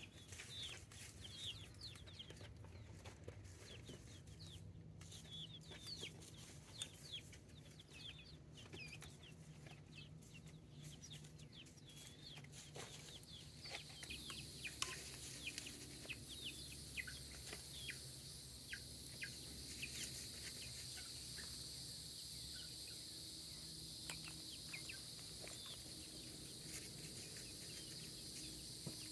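Faint birds calling: many short, high chirps repeating throughout. About halfway in, a steady high hiss sets in beneath them.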